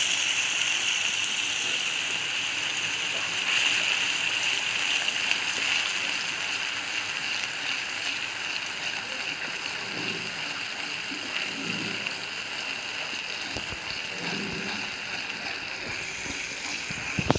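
Wet masala paste of ground onion, tomato, garlic, ginger and green chilli sizzling in hot oil in a kadai: a steady frying hiss that slowly dies down as the paste cooks, with soft stirring from a wooden spatula and a short knock near the end.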